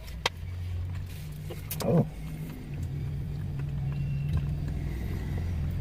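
Motor vehicle engine running with a steady low hum, heard from inside a van's cabin, slowly growing louder. A single click comes shortly after the start.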